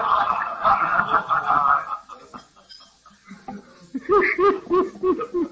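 An audience of men laughing at a joke, dying away about two seconds in. Near the end one man laughs on his own, a quick run of about six 'ha' sounds. It is heard through an old cassette tape recording.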